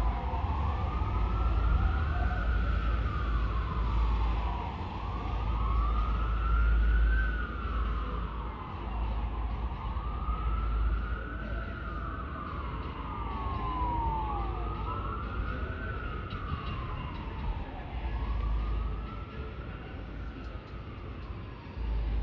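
Emergency vehicle siren in a slow wail, rising and falling about every four to five seconds, over a steady low road rumble.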